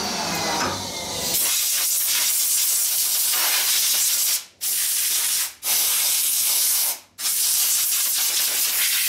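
A loud, steady hiss that cuts out abruptly for a split second three times, about four and a half, five and a half and seven seconds in.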